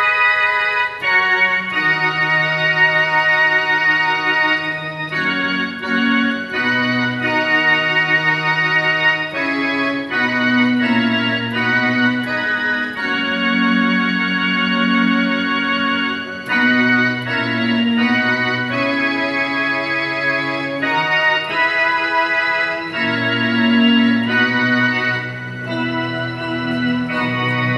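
Electronic keyboard played with an organ voice: sustained chords over a moving bass line, each chord held steady without fading and changing every second or two, a slow instrumental hymn passage.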